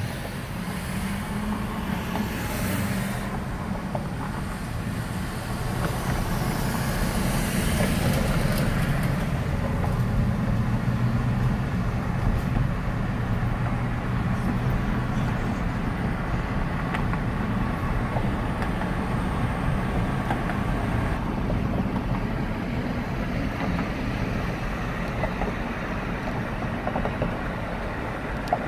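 Road noise of a car driving in traffic, heard from inside: a steady low rumble of tyres and engine, with the hiss of other traffic swelling past twice in the first ten seconds.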